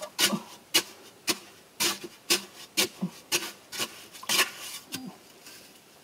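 A long digging bar driven repeatedly into hard earth and rock, about two strikes a second, stopping about five seconds in.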